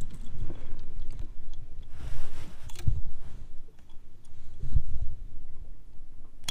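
Handling noise in an aluminum boat: rustling and several dull knocks, with a short hiss about two seconds in and a sharp click at the very end.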